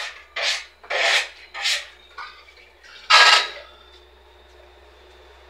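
A run of short scraping rubs, four about half a second apart, then a louder one about three seconds in, followed by a faint steady high whine.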